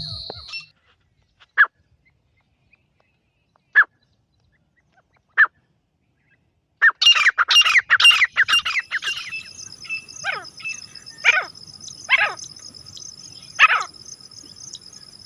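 Grey francolin calling: three single sharp calls a couple of seconds apart, then from about seven seconds in a fast, loud run of calls, followed by calls roughly every second. A steady high-pitched buzz starts with the loud run and continues underneath.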